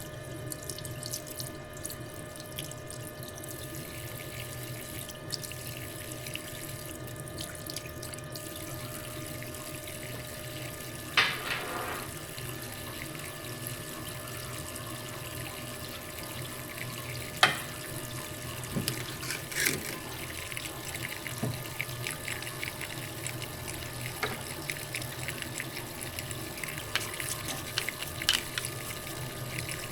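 Metal lathe running while cutting steel with coolant flowing: a steady hiss of liquid over a motor hum. A ringing metallic sound comes about 11 seconds in, a sharp click about 17 seconds in, and lighter clicks follow.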